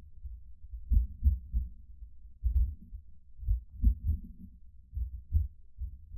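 Irregular low thumps and rumble on the microphone, a few each second, with nothing above the low range: typical of wind buffeting or handling noise.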